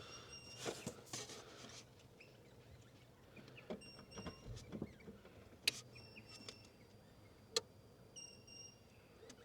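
Quiet stretch with a few scattered light clicks and knocks, two of them sharper, and from about the middle on a short high chirp that repeats roughly every two seconds.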